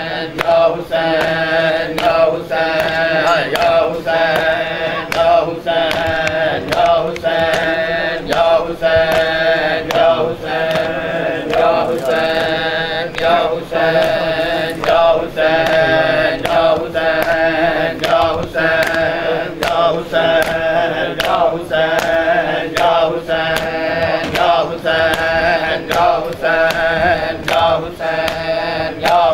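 A crowd of men chanting a mourning lament in unison, over a steady beat of open-hand slaps on bare chests (matam), roughly one to one and a half slaps a second.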